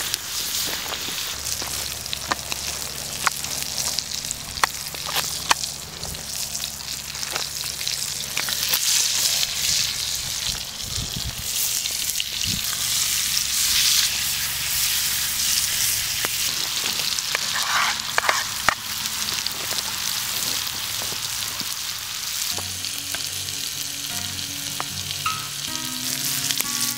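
Filet mignon steaks searing in butter in a frying pan: a steady sizzle with scattered sharp pops and crackles.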